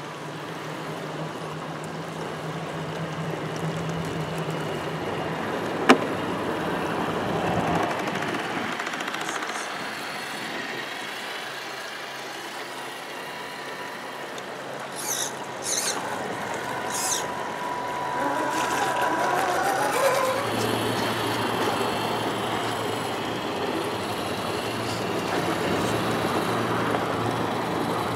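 Electric drivetrains of RC scale crawler trucks whining as they drive through a shallow running stream, with the water rushing and splashing around the tyres. A sharp click sounds about six seconds in, and there are short high squeals and a held whine in the middle stretch.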